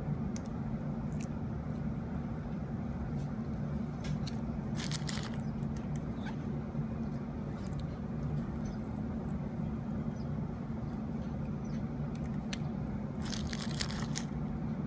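Steady low hum, with short crinkling crackles of adhesive tape and a thin plastic sheet under fingers pressing leaves onto the tape, about five seconds in and again near the end.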